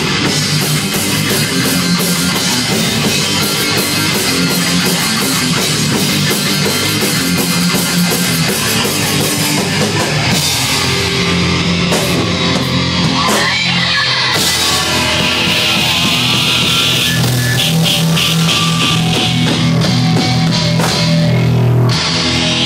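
Live rock band playing loud: electric guitars, bass guitar and a Tama drum kit with busy cymbals. About halfway through the drumming thins out, then the band comes back in with held chords and cymbal hits.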